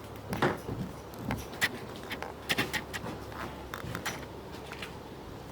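Irregular light knocks and clicks of a kayak being pulled along on its wheeled cart, over a steady low hum.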